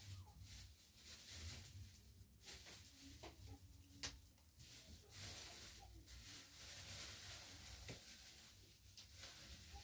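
Near silence: faint room tone with a single sharp click about four seconds in.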